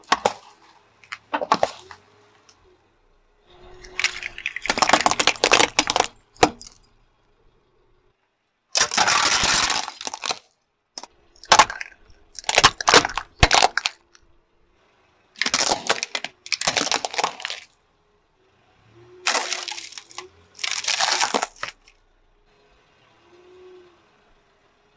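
A car tyre rolling over and crushing a run of small objects one after another, with a burst of crunching and cracking as each one gives way: cardboard snack cans packed with small balls, plastic LED candles, and a plastic bottle of liquid. There are about six separate crushes, each a second or two long, with short quiet gaps between them.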